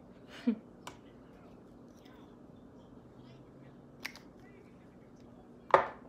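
Four short clicks and taps from handling makeup brushes and products, the loudest near the end.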